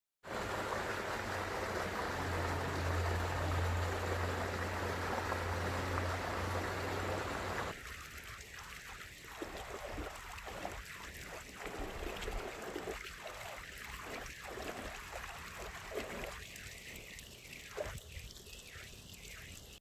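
Flowing stream water: a loud, steady rush with a low rumble underneath for the first seven or eight seconds, then an abrupt change to quieter, uneven trickling and splashing.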